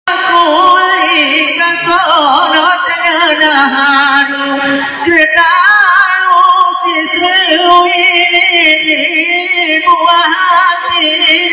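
A single voice singing a Gayo didong verse unaccompanied, in long, heavily ornamented wavering lines, with a brief break about five seconds in.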